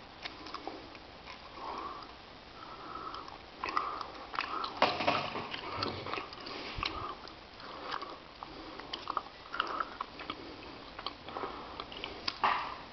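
Hard, effortful breathing through the nose in short puffs, mixed with scattered clicks and knocks from a Vulcan hand gripper being handled and squeezed close to the microphone. The loudest cluster of clicks comes about five seconds in.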